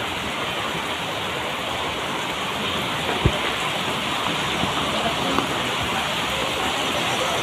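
Heavy rain falling in a steady hiss, with a single sharp knock about three seconds in.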